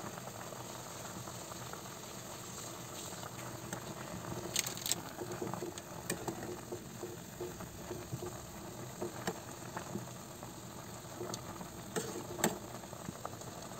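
Instant noodles boiling in a metal pot, a steady bubbling hiss, with a spoon stirring them and clinking against the pot now and then.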